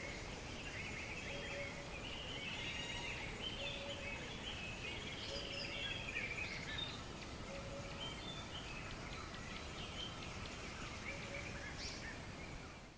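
River ambience: a steady rush of flowing water with many birds singing and chirping over it. A short low note recurs every second or two. The whole fades out at the very end.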